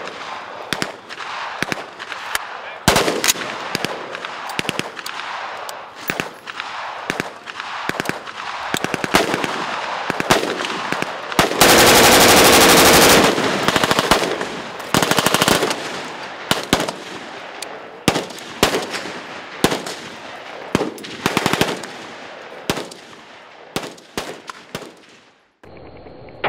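Select-fire AR-10 in .308, converted from a semi-automatic Palmetto State Armory PA-10, firing one sustained full-auto burst of about two seconds near the middle. It runs at roughly 800 rounds a minute and is the loudest sound here. Single shots and short bursts from other guns on the range go off before and after it.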